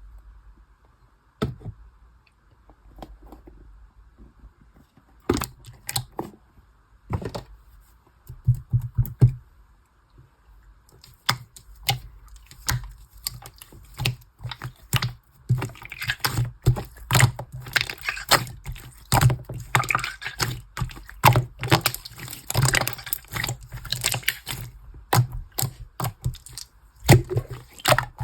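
Slime being played with by hand: scattered sharp clicks and pops at first, then a dense, fast run of crackling clicks and squishes from about eleven seconds in.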